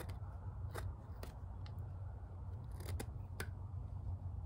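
The scooped flat-chisel blade of a Schrade Old Timer folding carving knife cutting into a stick of wood: short, sharp scraping cuts at irregular intervals, over a steady low hum.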